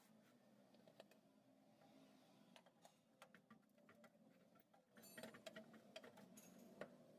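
Near silence broken by faint, irregular metallic clicks of hand tools working on the engine, coming more often in the last two seconds.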